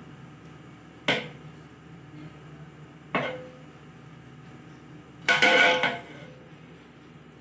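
A spoon knocking against a metal cooking pot while rice is spread in it: two sharp knocks, the second ringing briefly, then a longer, louder scraping clatter near the end.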